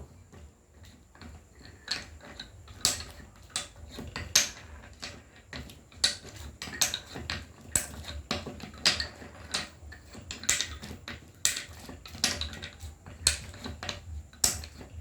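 Discs of a four-disc Tower of Hanoi puzzle being lifted and set down on the pegs in quick succession: a string of irregular clacks and knocks, one or two a second, as the puzzle is solved against the clock.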